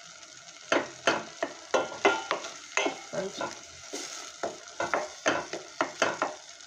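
Spoon stirring chopped lemon and ginger in hot oil in a pot on a gas burner: repeated scrapes and knocks of the spoon against the pot, about three a second, over a light sizzle as the mixture starts to simmer.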